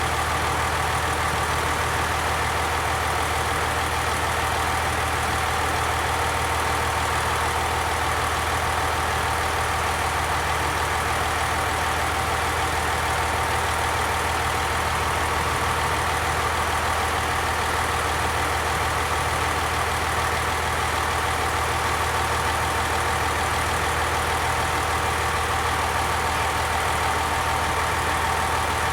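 Diesel railcar engine running at a steady idle-like pace, an even, unchanging hum with steady overtones throughout.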